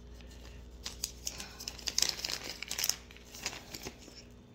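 Crinkling and rustling with many small sharp clicks from fishing tackle handled close to the microphone while split-shot sinkers are fitted onto the line, busiest about two to three seconds in.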